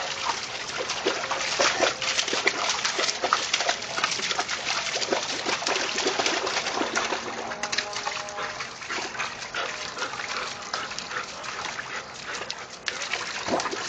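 A dog digging like crazy in a wet, muddy hole: a continuous, rapid, irregular splattering and scraping of paws in wet mud and water.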